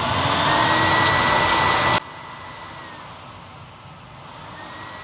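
Three-stage vacuum-motor blower running on high, a loud rush of air with a steady whine, forcing air through the pellet burner to blow out the burning charcoal. The rush drops off abruptly about two seconds in, leaving a quieter whine.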